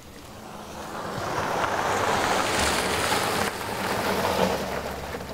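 An SUV driving up on wet asphalt: the hiss of its tyres on the wet road swells over a couple of seconds over a low engine hum, then eases as the car slows near the end.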